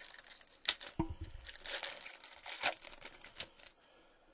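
Foil trading-card pack wrapper being torn open and crinkled by hand: a busy run of crackling, tearing strokes that stops about three and a half seconds in.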